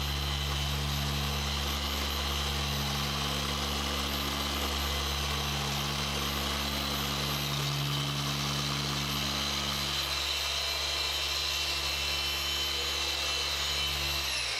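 Rupes machine polisher running steadily with a foam pad, working compound into car paint, a steady motor hum with a high whine. Right at the end it is switched off and spins down, its pitch falling away.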